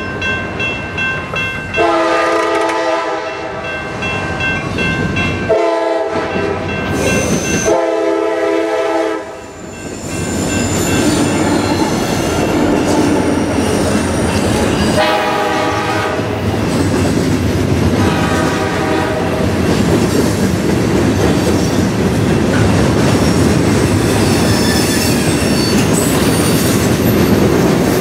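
A railroad crossing bell is ringing as a diesel-hauled freight train approaches. The locomotive's horn sounds five blasts, then the train passes close by with engine rumble and wheels clacking over the rail joints, and the wheels squeal near the end.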